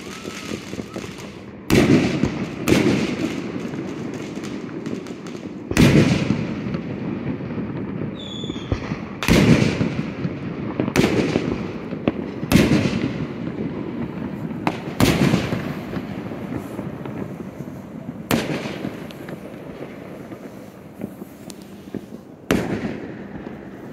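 Aerial firework shells bursting in a public display: about ten loud booms a second or two apart, each followed by a rumble that dies away.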